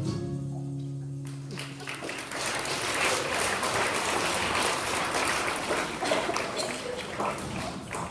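Song ends on a held chord, then an audience applauds from about a second and a half in, tailing off near the end.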